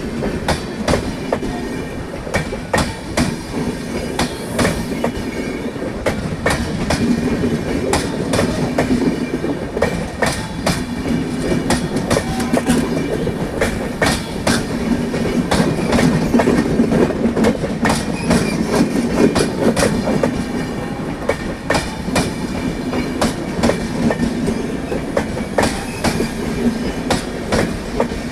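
The 22501 New Tinsukia Express running on the rails, its wheels clattering over rail joints in a rapid, irregular run of clicks over a steady rumble.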